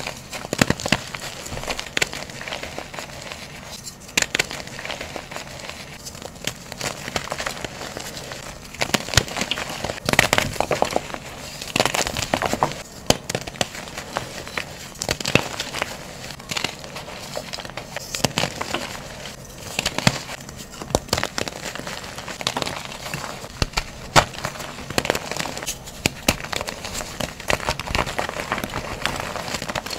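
Blocks of reformed gym chalk crunching and crumbling as fingers squeeze and break them: a dense, irregular run of small crackles with louder crunches here and there.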